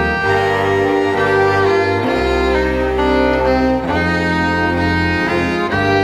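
A bowed string ensemble of fiddle and cello plays slow, sustained, drone-like chords. The cello's low notes change about every two seconds under the held fiddle lines.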